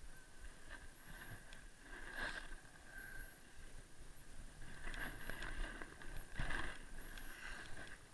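Skis swishing and scraping on groomed snow through a series of turns, about four swells with the strongest near six and a half seconds in.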